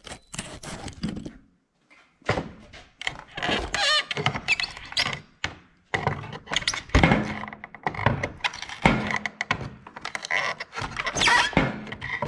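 Package being opened by hand: irregular rustling and tearing of packaging with repeated knocks and thunks as it is handled.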